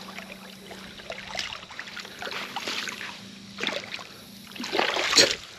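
Small flathead catfish splashing and thrashing in shallow water as it is drawn in to the bank. The splashes come in several short bursts, the loudest near the end.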